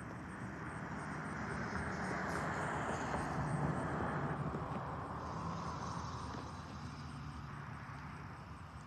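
A passing motor vehicle: an engine hum under a rushing noise that swells to a peak about three and a half seconds in, then slowly fades.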